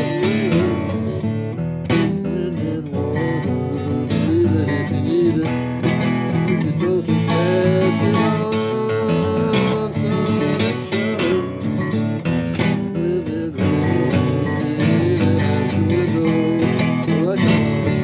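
Acoustic guitar strummed and picked steadily through an instrumental break between sung verses.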